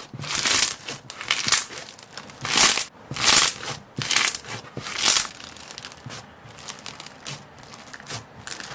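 Crunchy slime being squeezed and pressed by hand, giving crackly crunches about once a second, with smaller, quieter crackles after about five seconds.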